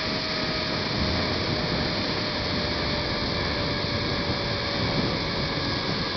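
Rush of wind over the microphone and the zipline trolley running along the steel cable during a fast ride, a steady hiss with a thin whine that slowly falls a little in pitch.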